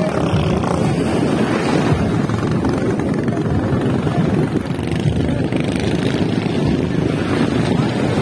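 Wind rumbling on the microphone over choppy sea, with the drone of racing outrigger boats' engines out on the water.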